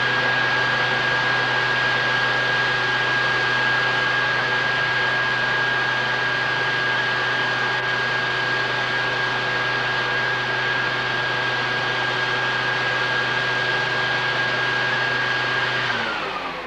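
An electric motor running steadily at full speed: a loud hiss with a steady high whine and a low hum. Near the end it is switched off and winds down, the whine falling as it stops.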